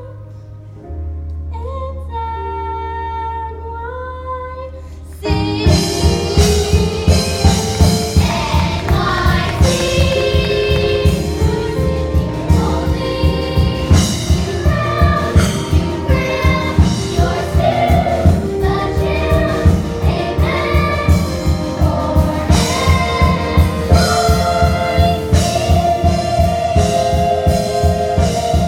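A stage musical's cast singing with accompaniment: a soft held chord under a few sung lines, then about five seconds in the full accompaniment comes in loudly with a steady driving beat and the whole ensemble sings out the big finish.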